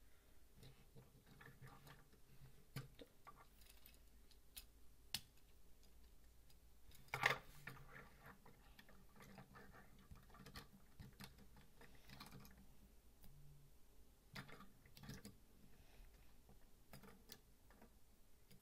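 Faint, scattered clicks and taps of plastic Lego pieces being handled and pressed into place on a small helicopter model, the loudest a sharp click about seven seconds in.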